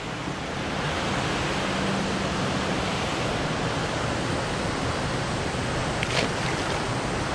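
Steady rush of river water pouring over a low dam. A brief knock about six seconds in.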